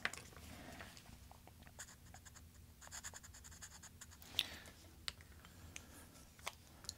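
Faint scratching of a marker being drawn on the plug of a Schlage lock cylinder, with small clicks as the metal plug is handled.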